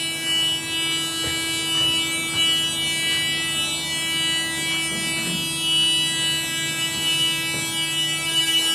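Otis hydraulic elevator's nudge-mode buzzer sounding one steady tone, the warning that the doors have been held open too long and will now force themselves closed.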